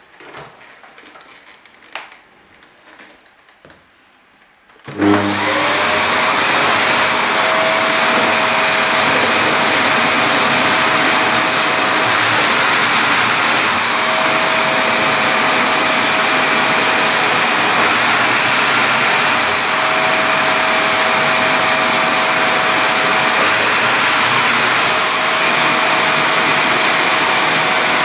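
Vacuum cleaner switched on about five seconds in, after a few faint handling knocks, then running steadily as its floor nozzle is worked over a shaggy rug, with a thin whistle that comes and goes.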